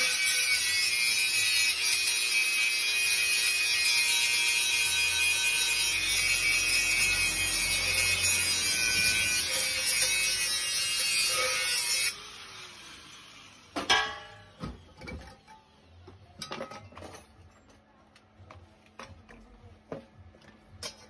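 Handheld angle grinder running against a metal pan, a loud grinding noise with a steady motor whine. About twelve seconds in it is switched off and winds down with a falling whine. Then a loud metallic knock and scattered light clinks and taps as the pan is handled.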